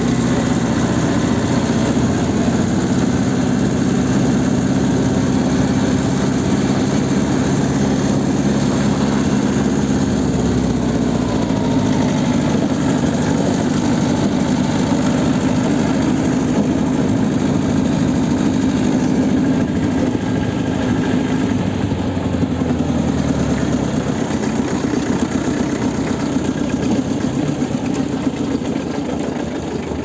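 Old Leyland farm tractor's engine running steadily as it drives along a gravel track, its note shifting about ten seconds in.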